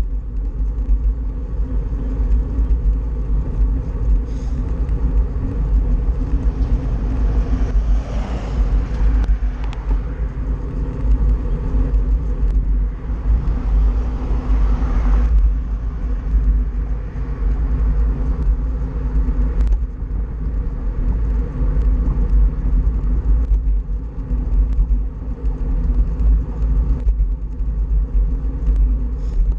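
Wind rumbling on the microphone of a handlebar-mounted action camera, mixed with tyre noise on asphalt, as a road bike rides along. The noise swells briefly twice, about eight and fourteen seconds in.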